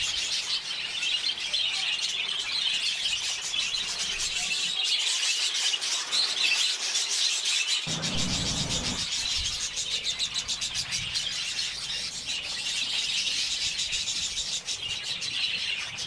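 Many budgerigars in a colony chattering and chirping continuously, all at once. There is a brief low rustle about halfway through.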